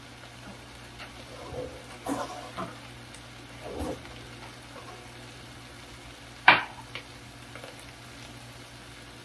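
Kitchen cookware handling: a few soft knocks and clatters, then one sharp metal clank about six and a half seconds in as a stainless pot with a ladle in it is handled. Underneath, a pan of kale heating in fat on the stove gives a faint, steady sizzle.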